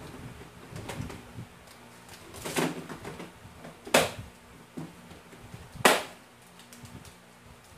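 Household knocking and clatter: several soft knocks and some rustling, then two sharp, loud knocks about four and six seconds in, over a low steady hum.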